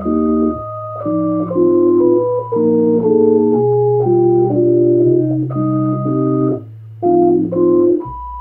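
Yamaha A4000 sampler playing an organ-like keyboard sound: chords over a bass line that changes note about once a second, with a melody that steps down in pitch. The music drops out briefly near the end, then comes back.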